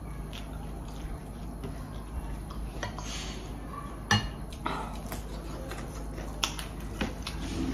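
Occasional clinks and taps of tableware against a plate during a meal, the sharpest about four seconds in, over a steady low hum.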